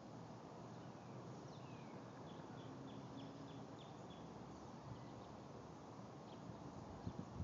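Faint steady background noise with a bird singing: a quick run of short, falling chirps about two to four seconds in. A few soft low thumps come near the end.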